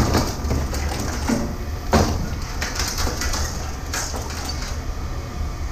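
Scrap metal clanking and knocking as it is handled, with sharp knocks at the start, about two seconds in and about four seconds in, over a steady low rumble of running machinery.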